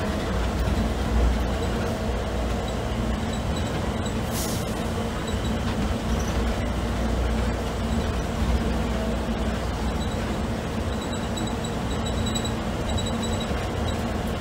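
Cabin noise of the Houston Skyway's rubber-tyred automated people mover running along its concrete guideway: a steady low rumble with an even electric hum. A brief hiss about four seconds in.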